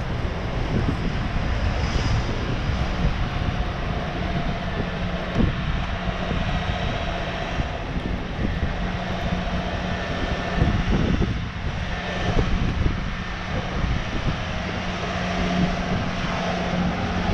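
A steady engine drone with a held low hum over street noise.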